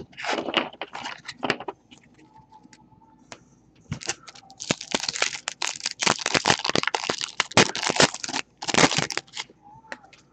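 Basketball card pack wrapper being torn open and crinkled by hand: a dense run of crackling from about four seconds in to about eight, then a shorter crackle just after. Fainter rustling of cards being handled comes in the first couple of seconds.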